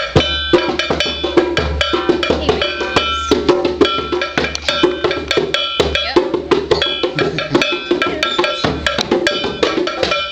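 Pet lovebirds chirping continuously, a dense stream of short, high-pitched calls with sharp clicks among them.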